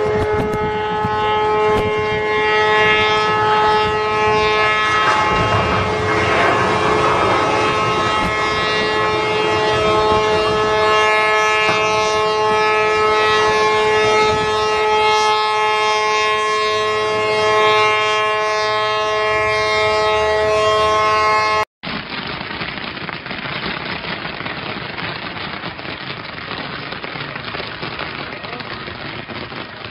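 Several ship horns sounding together in a steady, chord-like blast as a cargo ship is side-launched, with a rush of water as the hull hits the canal about six seconds in. The horns cut off suddenly about two-thirds of the way through, followed by a steady crackling hiss.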